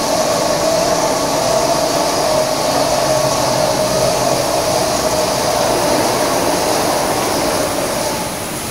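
PDQ ProTouch gantry car wash running: the overhead gantry travelling on its rails with a steady motor whine while its brushes work and water sprays with a hiss. The sound eases slightly near the end.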